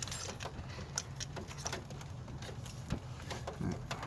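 Scattered small clicks and light knocks of spark plug wires being handled and pushed into a distributor cap.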